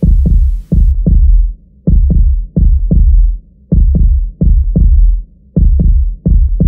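Heartbeat sound effect: loud, deep lub-dub thumps in close pairs, a little under one beat a second.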